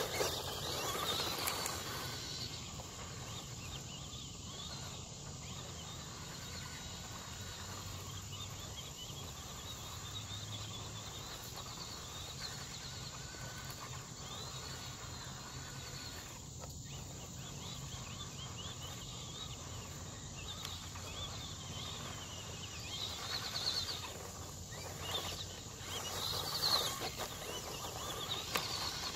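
Small electric RC truck driving over dirt and grass: its motor whine and tyre noise swell as it runs close by, in the first couple of seconds and again near the end. Between those passes there is only steady outdoor background noise.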